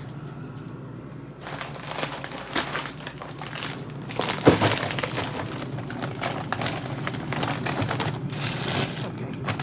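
Plastic food packages crinkling and rustling, with clicks and knocks, as they are handled and put back into a fridge. One sharp knock about four and a half seconds in.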